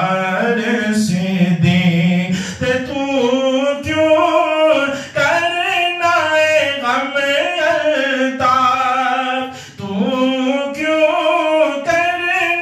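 A man singing a manqabat, a devotional praise poem, unaccompanied into a microphone. He holds long notes that waver and bend in pitch, and the melody climbs higher about two and a half seconds in.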